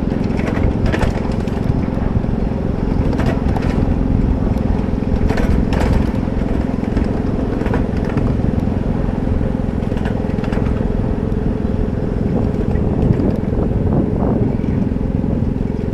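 Ride-on miniature train running along its track: a steady engine drone with the rumble of the cars, and irregular sharp clicks from the wheels on the rails.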